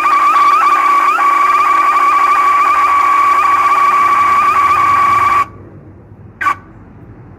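Car alarm siren wired as a horn, malfunctioning and sounding on its own: one loud, steady high tone that cuts off suddenly about five and a half seconds in, then one short beep about a second later.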